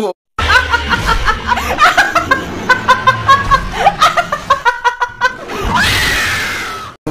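A woman laughing in quick repeated bursts, then one long scream near the end that slowly falls in pitch and fades out.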